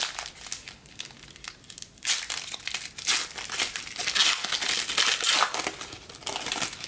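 Foil wrapper of a trading card pack being crinkled and torn open by hand, in several bursts of crackling.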